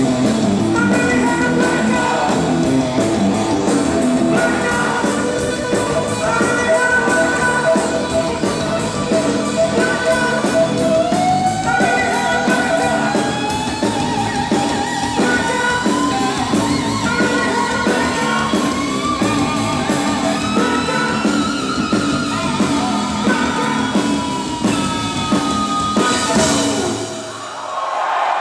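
Live hard rock band playing: distorted electric guitars, bass, drum kit and a male lead singer, loud and continuous. Near the end the band stops on a final crash.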